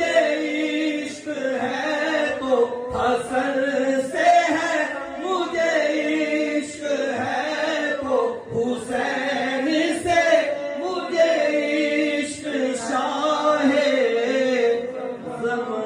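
A man singing a naat, a devotional poem in praise of the Prophet, through a microphone, in a chant-like melody with long held notes that bend and glide, broken by short pauses for breath.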